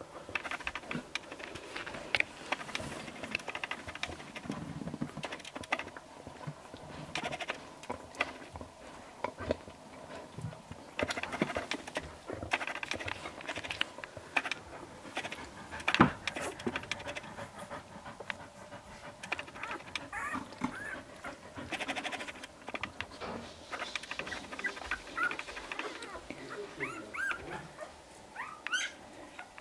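Newborn Bearded Collie puppies nursing and wriggling against their mother, with scattered soft clicks and rustles and a few thin, high, rising squeaks near the end.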